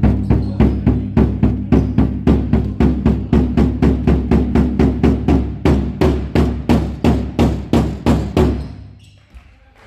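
A fan's drum beaten with a steady, quick beat of about four deep strikes a second, stopping shortly before the end.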